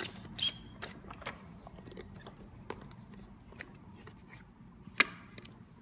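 Cardboard smartphone box being handled and opened: the outer sleeve slides off the white inner box with light scraping and small clicks, and a sharp tap about five seconds in.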